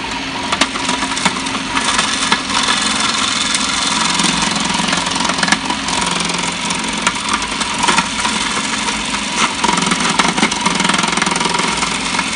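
Electric food processor's motor running steadily as lemongrass stalks are pushed down its feed tube and sliced, with scattered sharp ticks as the blade cuts the stalks.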